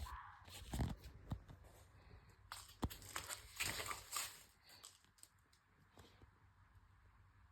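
Wild animals squabbling: harsh, scratchy calls in two bouts, one at the start and a longer one from about two and a half to four seconds in, with a few sharp clicks between.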